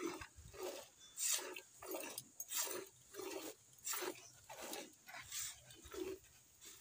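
Milk squirting by hand from a cow's teats into a metal bucket, alternating hands in a steady rhythm of about two short hissing squirts a second.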